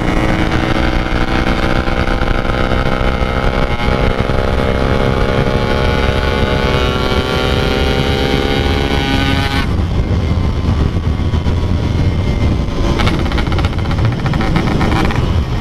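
Two-stroke Yamaha RX-King motorcycle engine on the move under throttle, its note climbing slowly in pitch for about nine seconds. Then the throttle comes off and the clear note gives way to a rougher, lower rumble.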